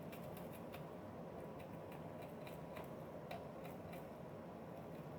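Small, worn wire brush scraping at a painted metal plate, a faint, irregular run of scratchy clicks; the coating is not coming off.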